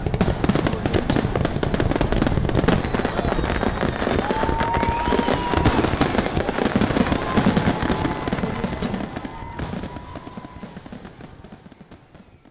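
A dense barrage of fireworks going off: rapid overlapping bangs and crackles over a low rumble, with a thin whistling tone through the middle. The barrage thins and fades away over the last few seconds.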